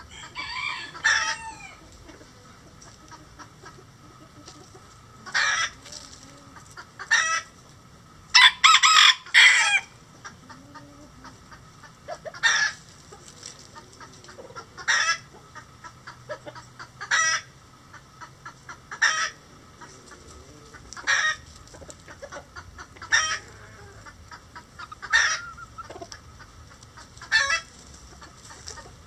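Bantam chickens clucking and calling, with a loud run of calls about nine seconds in, then short calls repeating roughly every two seconds.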